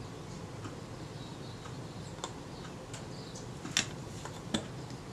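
A handful of small, sharp metal clicks as a lens spanner is worked into the slots of the shutter retainer ring of a Kodak Retina II camera, the loudest just under four seconds in.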